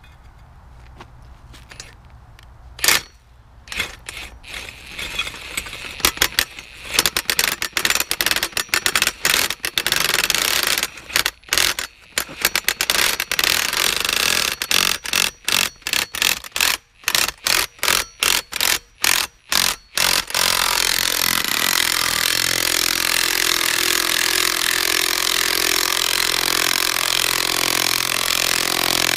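Ryobi impact tool turning a 30-inch double-disc mobile home ground anchor into a gravel driveway through an adapter. It runs in many short trigger bursts at first, then steadily for the last several seconds.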